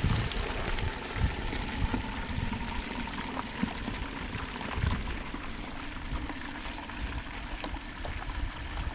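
Hot oil in a propane turkey fryer bubbling and sizzling steadily around a turkey freshly lowered into the pot.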